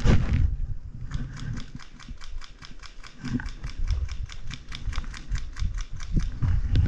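A close rustle and thump at the start, then a fast, even clicking, about six clicks a second, lasting some five seconds, over low rustling of clothing and gear on dry ground.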